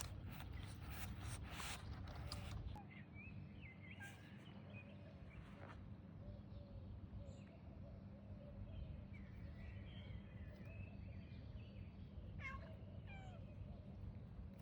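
Cat meowing faintly in many short, wavering calls, after a couple of seconds of rustling noise.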